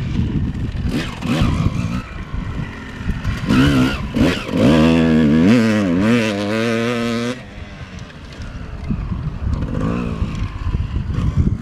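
Motocross bike engine revving up and down in quick surges as it is ridden along the dirt track. It is loudest from about three and a half to seven seconds in, then drops away suddenly and carries on faint.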